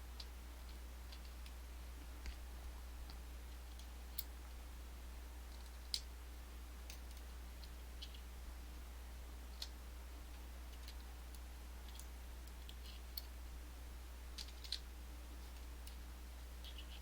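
Sparse, irregular small clicks and taps of Abloy Classic lock discs being handled, slid out of the disassembled core and set down in rows, over a steady low hum.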